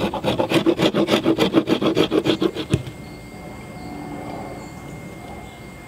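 Round rasp filing the sides of a wooden hammer handle in quick back-and-forth strokes, several a second, shaping it to fit the hammer head's eye. The rasping stops abruptly about three seconds in, leaving only a faint, steady background.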